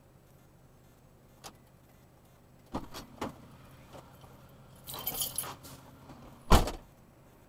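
A few sharp knocks, then a metallic jingling rattle about five seconds in, and one heavy thump near the end.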